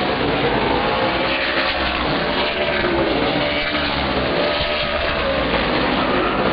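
A pack of Outlaw Super Late Model stock cars racing, their V8 engines running hard with several overlapping engine notes rising and falling as the cars pass.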